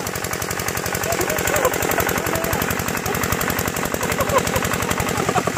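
Kirloskar-type 5 HP single-cylinder diesel engine running steadily under load with a rapid, even chug of exhaust beats as it drives a centrifugal water pump. Water sprays and splashes down around it.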